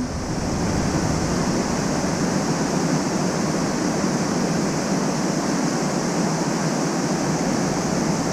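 Steady rush of water from a small waterfall spilling into a stream pool.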